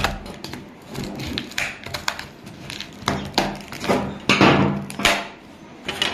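Irregular knocks, clatters and short scrapes as the cut-up mobile phone's plastic and metal body pieces are handled, busiest about halfway through.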